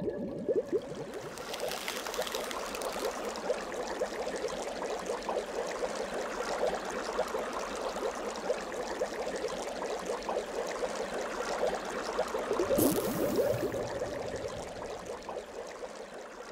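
Sticky slime being squeezed and kneaded by hand, a continuous run of wet, crackling squelches, with a louder squelch about thirteen seconds in. A faint steady tone runs underneath.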